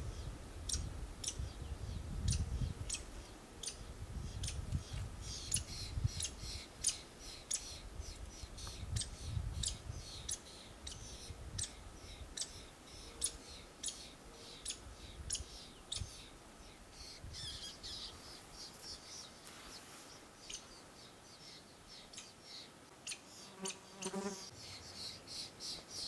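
Lewis's woodpecker nestlings begging from the nest hole: a long series of short, high, thin call notes, about two a second, with patches of denser high chattering, thinning out in the last third.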